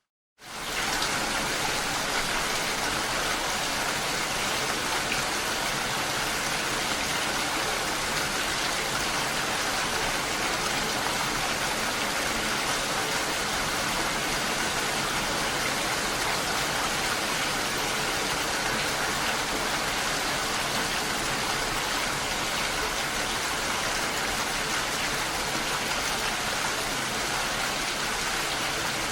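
Steady rainfall, an even hiss of rain with no change in intensity, coming back in a fraction of a second after a brief moment of silence at the very start.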